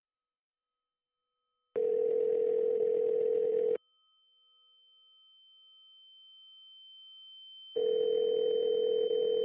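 Telephone ringback tone: a steady low tone sounds for about two seconds, stops, and comes again about six seconds later. These are two rings of a call that is going unanswered.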